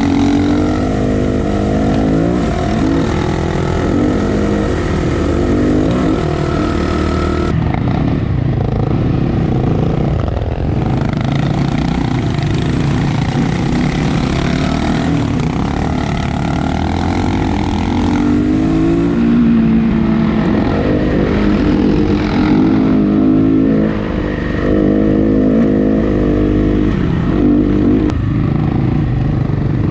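Dirt bike engine being ridden, its pitch rising and falling again and again as the throttle opens and closes.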